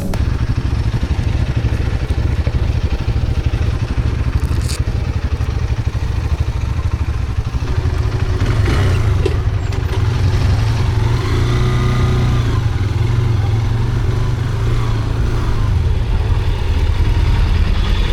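Hero Hunk 160R 4V's single-cylinder engine running steadily while riding, with road and wind noise.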